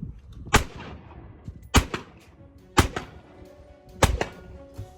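Gunfire: four sharp shots about a second apart, each ringing out briefly, with faint music underneath.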